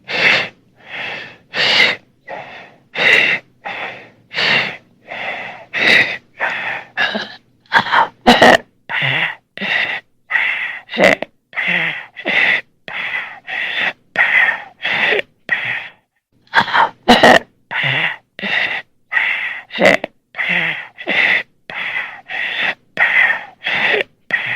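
Horror creature breathing sound effect: rapid, rasping, laboured gasps in and out, about one and a half breaths a second, the sound of a monster struggling for air. A few short sharp clicks cut in among the breaths.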